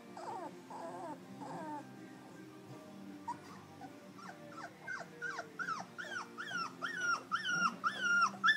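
Three-week-old Labrador puppy whining: soft, quick squeaks at first, then from about halfway in a series of high, falling cries, about two a second, getting louder.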